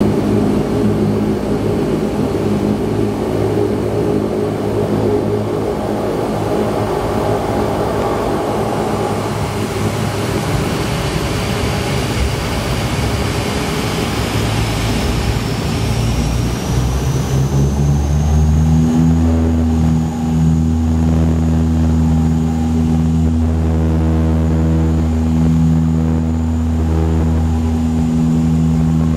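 Bombardier Dash 8 Q300 turboprop engines and propellers heard from inside the cabin, first running at low power as a rough rumble. About halfway through, a high turbine whine rises in pitch, and the propeller drone then climbs and settles into a loud, steady low drone as power comes up for the takeoff roll.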